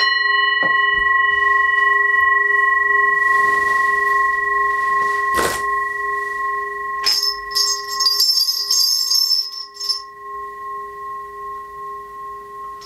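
Brass singing bowl ringing on after a strike, several steady tones slowly fading, with a single knock about five seconds in. About seven seconds in, a cluster of small bells jingles for about three seconds as it is shaken, and the bowl's tone rings on quietly beneath.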